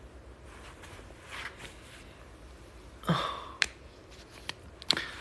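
Quiet room hum with a breathy exhale close to the microphone about three seconds in, followed by a few sharp clicks and small knocks from a person moving near the phone.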